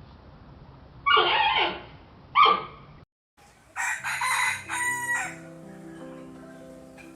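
Two short, loud animal calls. After a brief silence comes a rooster crowing, about a second and a half long.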